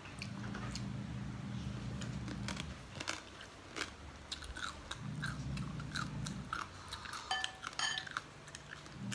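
Close-up mouth sounds of a person chewing a mouthful of lomi noodle soup: many small, sharp smacks and clicks throughout. A low hum comes and goes in the background.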